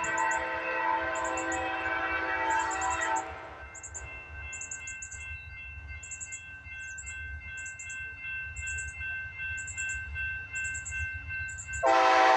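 Amtrak GE P42DC locomotive air horn blowing a long blast that stops about three seconds in, and sounding again near the end. In between, a quieter low train rumble goes on under a steady high ringing tone.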